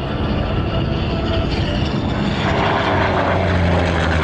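Piston engine of a propeller-driven warbird in flight, a steady drone that grows louder about two and a half seconds in as the plane comes closer.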